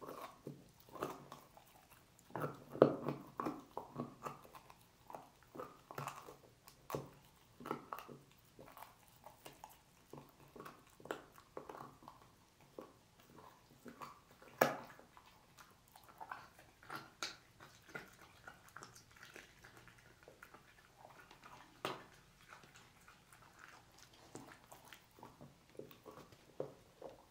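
A dog gnawing and chewing pork trotter bones: irregular wet smacks, crunches and clicks of teeth on bone. Two louder cracks come about three seconds in and about fifteen seconds in.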